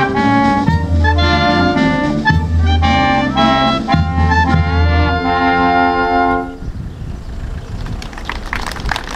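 Wind band of clarinets, saxophones, trumpets, trombones and tuba playing, closing on a held chord that stops about six and a half seconds in. After it only a rough noise with scattered crackle remains.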